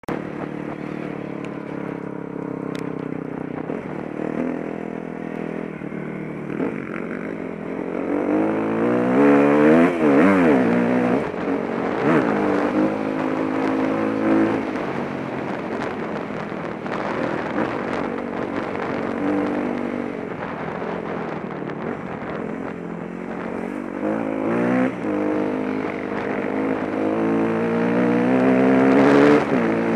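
Enduro dirt bike engine heard from on board, its revs rising and falling as the rider works the throttle and gears on a dirt track. The revs climb hardest about nine to ten seconds in and again near the end.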